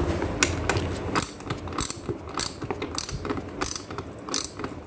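Hand socket ratchet with a 14 mm socket clicking in short repeated bursts, a little under two a second, as it is worked back and forth to loosen the clamp nut of a bicycle saddle.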